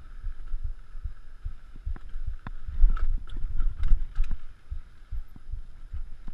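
Mountain bike ridden fast over a bumpy dirt trail, heard through a GoPro: a rumble of tyres and wind thumping on the microphone, with sharp clicks and rattles from the bike over bumps, thickest around three to four seconds in.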